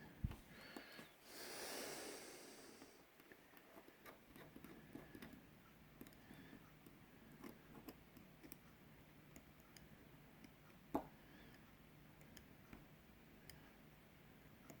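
Near silence with faint scattered clicks from small hand tools working on the phone's back as the glass and glue are cleaned off. There is a short hiss about two seconds in and a single sharper knock about eleven seconds in.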